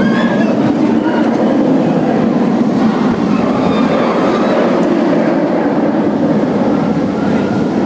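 Bolliger & Mabillard inverted roller coaster train running along its steel track as it passes close by, a steady loud rumble.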